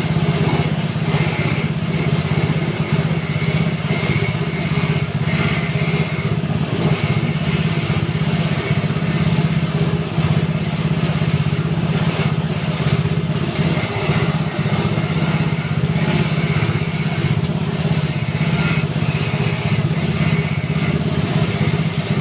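Coconut grinding machine, in use since 2000, running steadily with an even low motor hum and a higher rasping sound that comes and goes.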